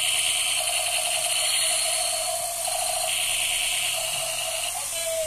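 Battery-powered toy robot walking with its sound effects on: a steady, rapid clicking whir from its geared walking mechanism together with an electronic tone.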